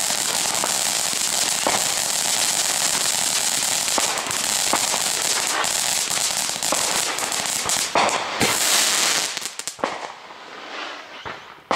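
Consumer firework fountain spraying with a steady hiss dense with crackles and pops, dying away about nine and a half seconds in to a few scattered crackles.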